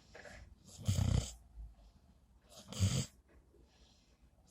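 Loud snoring: two snores, about a second and about three seconds in, each a low buzz with a breathy rasp, and a third beginning at the very end.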